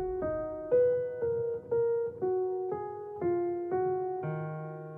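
Background music: a piano playing a line of single notes, about two a second, ending on a held chord that slowly fades out.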